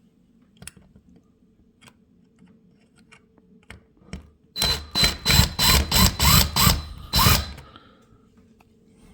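Power drill-driver driving screws to fix a smoke detector's mounting plate, run in about eight quick bursts over some three seconds, each spinning up with a rising whine. Light clicks of handling come before it.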